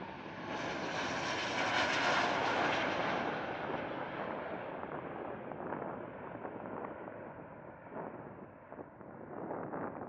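Airbus A330-900neo's Rolls-Royce Trent 7000 jet engines at takeoff thrust as the airliner passes close and climbs away. The jet noise peaks about two seconds in, then slowly fades as the high hiss dies away first.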